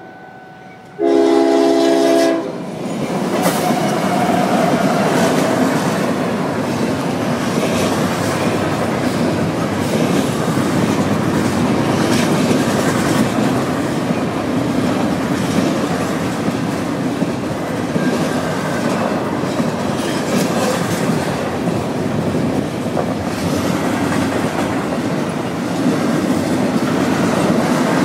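A CSX freight locomotive's horn sounds one short, loud blast about a second in. Then the intermodal train passes at speed: a steady, loud rumble and clatter of wheels on the rails that continues from then on.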